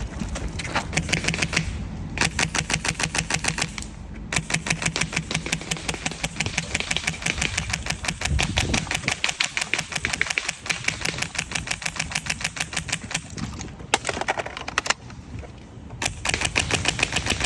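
Elite Force M110 airsoft rifle with a Polarstar F2 HPA engine firing fully automatic, a rapid even string of sharp pneumatic clicks. It fires in several bursts: a short one, one of about two seconds, one long string of about nine seconds, then a few brief ones.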